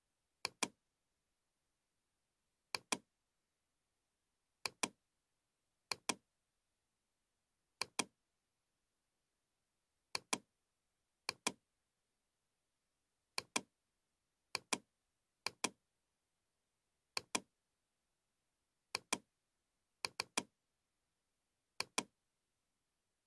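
Computer mouse button clicking as spline points are placed one after another. The clicks come in quick pairs, about one pair every one to two seconds, with dead silence between them.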